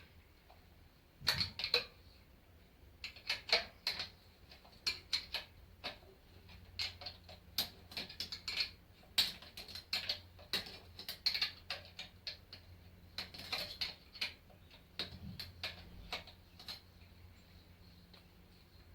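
Ratchet spanner clicking in short runs of strokes as an exhaust bolt is undone, with brief pauses between the runs.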